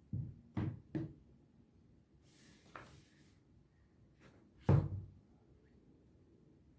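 Unboxing handling sounds of a phone box and its contents: a few quick knocks and taps, a brief scrape or rustle, then one heavier thump about two-thirds of the way in.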